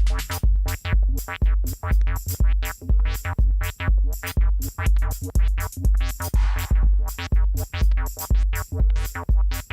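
Electronic dance music from a DJ set: a drum-machine kick about twice a second under synthesizer and percussion, with a brief hissing swell about six and a half seconds in.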